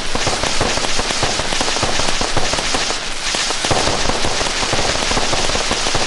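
Loud, dense crackle of rapid pops without a break.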